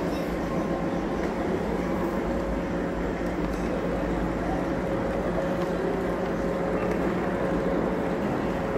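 Model electric multiple-unit train running along a miniature layout's track: a steady hum and rumble with faint steady tones.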